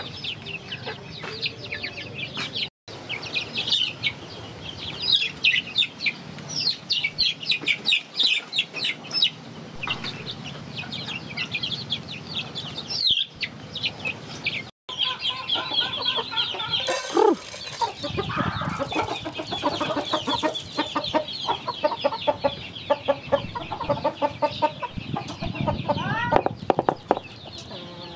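A flock of young chickens peeping rapidly in quick, high chirps while they feed, with lower clucking calls joining in the second half. The sound cuts out briefly twice.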